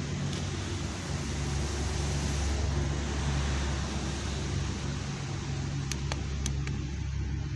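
Steady low rumble and hiss of background noise, with a few light clicks of the helicopter's infrared remote being handled about six seconds in.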